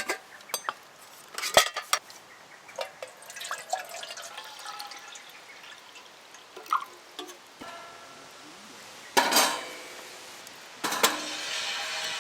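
Camp cooking handling sounds: sharp taps and clicks of cookware and packaging, some with a short ring. Then water is poured, in a burst about nine seconds in and again steadily from about eleven seconds to the end.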